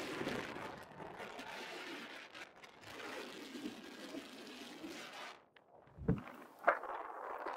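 Wind rushing over the microphone of a hang glider's wing-mounted camera in gliding flight, a steady hiss that drops away briefly about five and a half seconds in, followed by a couple of short knocks.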